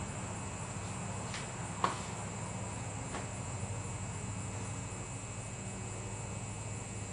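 Steady low hum with a thin high-pitched whine over it, and a few light clicks, the sharpest about two seconds in.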